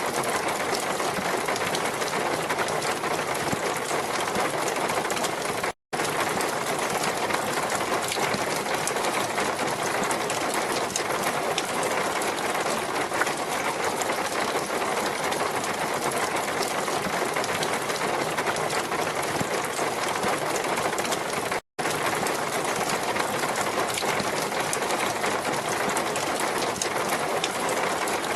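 Steady rushing water noise, even and unbroken apart from two split-second drop-outs to silence.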